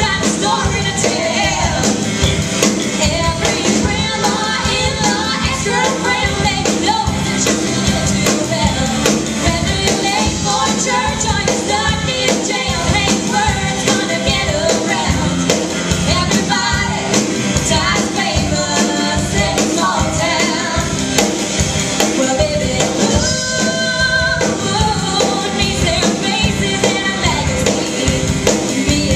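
Live rock band playing a song: electric guitars, bass and drums keeping a steady beat, with sung vocals over them.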